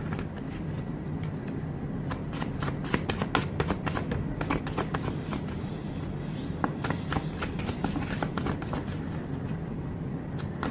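Oracle cards being shuffled by hand: a long run of small, irregular card clicks and flicks.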